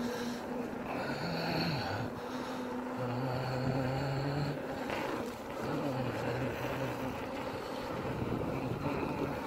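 Motor of a small ride-on vehicle running steadily as it travels, its hum shifting a little in pitch with speed, with wind rushing over the microphone.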